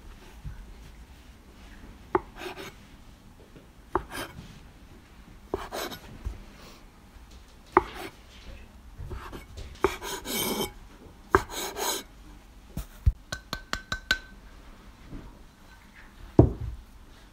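Kitchen knife cutting through soft rice-cake dough and knocking on a wooden cutting board, in separate strokes a second or two apart. A couple of longer scraping strokes come around the middle, then a quick run of light taps and one loud knock near the end.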